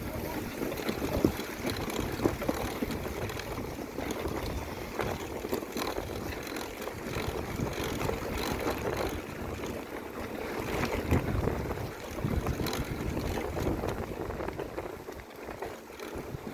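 Mountain bike ridden over a muddy cross-country trail: steady rumble of tyres and wind buffeting the microphone, with frequent small knocks and rattles from the bike.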